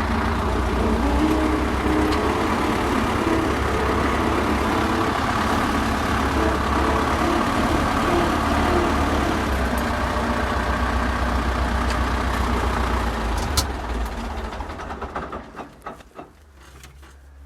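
YuMZ tractor's diesel engine running under load in low third gear, with the gearbox knocking, which happens only under load, as when pulling away. The owner suspects a gear in the gearbox. A sharp click comes near the end, and the engine sound then falls away.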